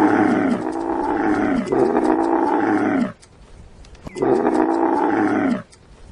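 Camel calling in long, loud calls that slide down in pitch, with a pause about three seconds in and another near the end.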